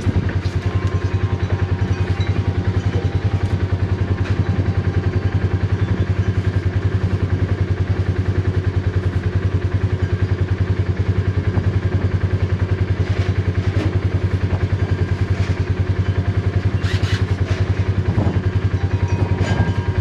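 An engine running steadily with a low, even throb, and a few light knocks and rattles about thirteen and seventeen seconds in.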